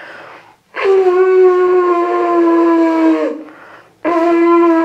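Animal horn blown as a signal horn: two long blasts, each holding one steady note. The first sags in pitch as it tails off, and the second begins about four seconds in.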